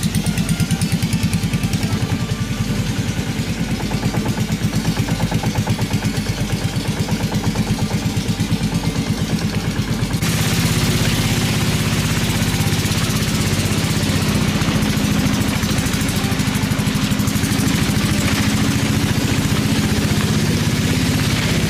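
Small boat's engine running steadily underway, with an even rhythmic pulsing. About ten seconds in, the sound grows fuller and hissier.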